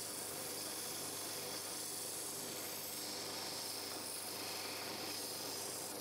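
Steel hammer head held against a spinning abrasive sanding disc, giving a steady high grinding hiss as the old rust and scale are ground off the face.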